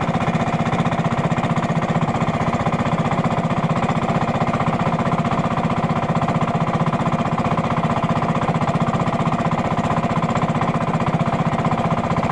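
Engine of a wooden fishing bangka running steadily, a fast, even chugging that does not change.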